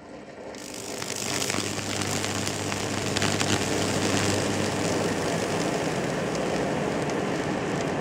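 High-voltage arc from a microwave oven transformer (about 2000 V) burning into a tree branch: a steady electrical buzz with crackling and hissing. It builds up over the first second or so, then holds.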